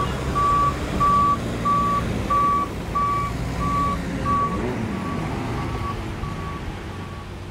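Tractor's reversing alarm beeping steadily, about every 0.6 s, over the low rumble of its engine; the beeps grow fainter in the second half.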